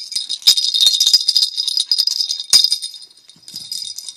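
A small bell inside a plastic toy ball jingling and rattling as the ball is shaken and rolled, with two sharper knocks about half a second and two and a half seconds in. The jingling thins out, then comes back more quietly near the end.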